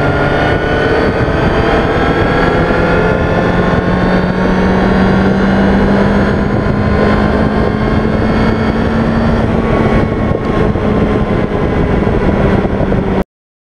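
Yamaha GTS1000's inline-four engine under full acceleration in top gear from about 100 to 200 km/h, its pitch rising slowly and steadily, with wind noise on the microphone. The sound cuts off abruptly near the end.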